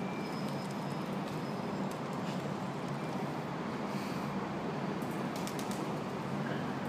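Street background noise: a steady low hum of traffic, with a few faint clicks.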